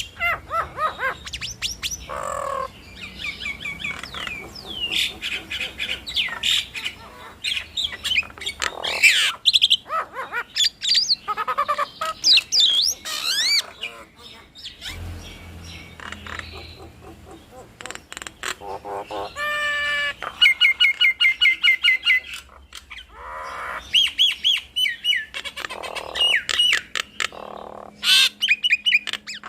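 Jalak nias mynas calling: a dense, varied run of whistles, squawks, gliding notes and chattering, with a fast series of short repeated notes about two thirds of the way through.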